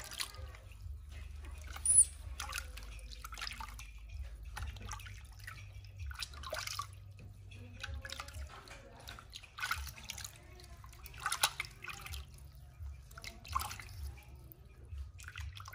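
Water splashing and dripping in a small plastic tub as hands scoop and pour it over a newborn baby monkey: irregular small splashes and drips, with one louder sharp splash about two seconds in.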